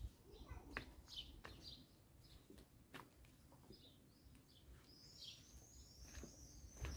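Faint high chirps of small songbirds over quiet outdoor ambience, growing into a denser run of chirping near the end, with a few soft clicks.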